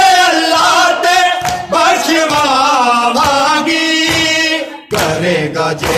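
A man singing a noha, a Shia mourning lament, in Punjabi, the melody wavering and drawn out, with a brief break just before five seconds in.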